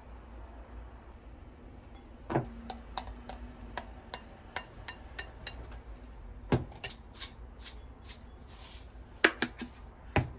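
Dishes and utensils clinking and knocking as they are handled: a run of sharp clicks and taps, the first knock leaving a short ringing tone, with louder knocks about two, six and nine seconds in.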